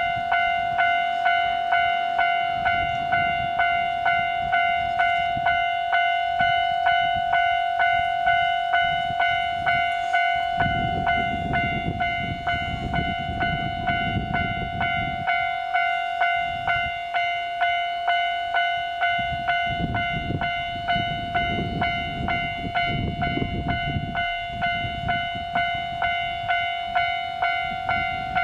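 Railway level-crossing warning bell ringing on and on, about one and a half strikes a second, each strike one ringing tone that fades. Under it, a low train rumble swells up about ten seconds in and again about twenty seconds in.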